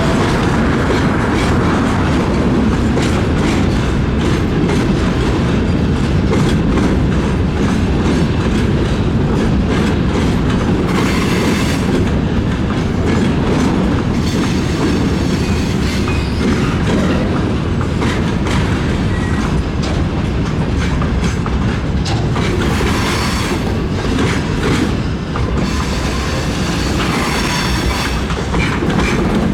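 A train rolling past close by, its wagon wheels clattering steadily over the rail joints.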